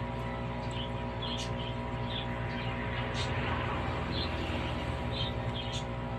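Steady hum of an aquarium air pump, with short high chirps scattered irregularly over it.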